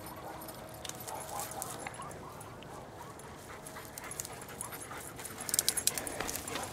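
German Shepherd dogs whining softly, with a burst of rustling and steps through grass and brush about five and a half seconds in.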